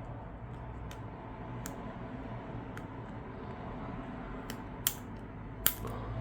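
A small tool clicking against a tablet's battery connector as it is prised loose: a few light clicks, then two sharper ones near the end, over a steady low hum.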